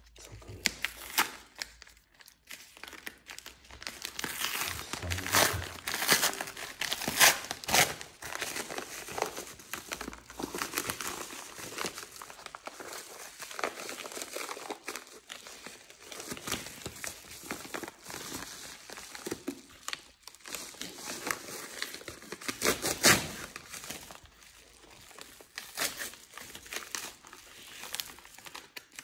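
Padded paper mailer envelope being handled and torn open by hand: irregular crinkling, crumpling and tearing of paper and padding, with the loudest crackles bunched several seconds in and again about two-thirds of the way through.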